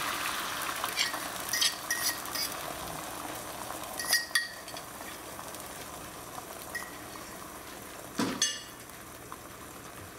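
Beaten eggs frying in hot oil in a skillet, a steady sizzle that gradually fades as the egg sets. Several light clinks come in the first half, and there is a louder clatter of kitchenware a little after eight seconds.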